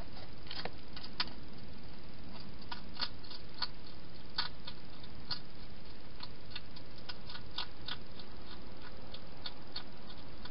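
A hedgehog eating from a bowl, with irregular sharp crunching clicks as it chews, over a steady hiss.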